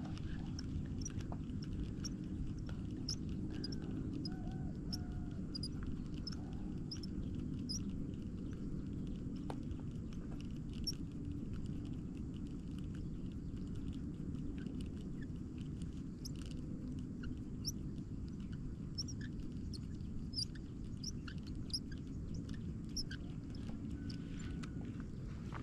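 Steady low rumble of wind on the microphone, with many short, high chirps of small birds scattered through.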